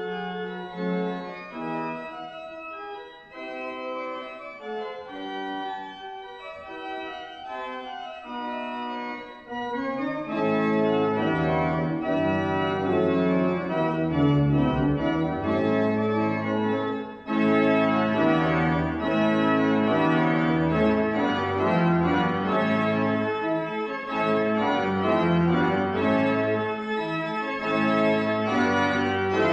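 Church organ playing a piece in sustained chords: a quieter, lighter passage for the first ten seconds or so, then fuller and louder with deep bass notes joining in. There is a momentary drop in sound about seventeen seconds in.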